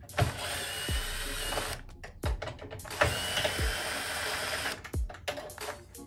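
DeWalt cordless drill-driver running in two bursts of about a second and a half each, driving screws into a door lock's faceplate, its motor giving a steady whine.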